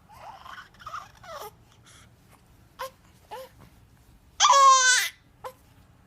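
Two-month-old baby girl making small short whimpering sounds, then one loud, high cry lasting about half a second, about four and a half seconds in, followed by a brief whimper.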